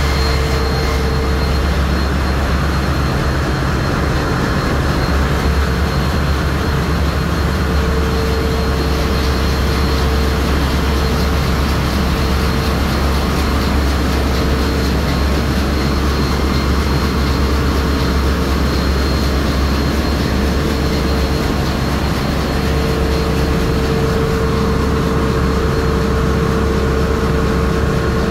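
Loud, steady drone of a bulk carrier's engine-room machinery: a deep hum under a wash of mechanical noise, with a higher steady whine that comes and goes.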